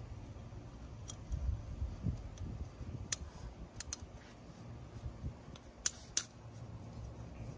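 Sharp plastic-and-rubber clicks and snaps as gloved hands work a new rubber O-ring onto a plastic oil-filter housing cap. A scatter of single clicks, with the two loudest snaps close together about six seconds in.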